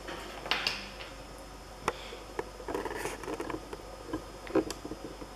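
Small plastic Kinder Surprise toy pieces handled in the fingers, with a few scattered light clicks and taps and soft rustling.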